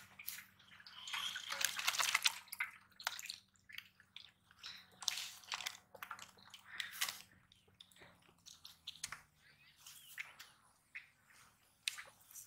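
Wet, irregular squelches, drips and slaps as mud and live fish are shaken out of a PVC pipe trap into a perforated plastic basket, with the fish wriggling against the plastic. The busiest, loudest stretch comes about one to two and a half seconds in.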